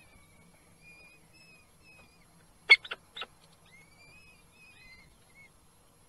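Young peregrine falcon chicks cheeping faintly in a run of thin, high, short calls while being fed. About halfway through there are three sharp clicks close together, the loudest sounds.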